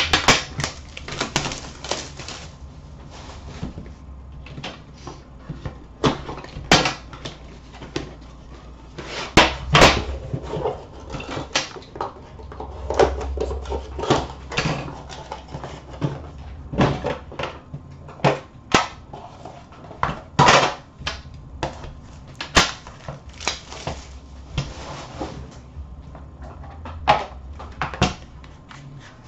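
Unboxing noise from an Upper Deck The Cup hockey card box: crinkling cellophane wrap, cardboard and a black metal tin being handled and opened. Irregular sharp clicks and knocks run through it, against a steady rustle.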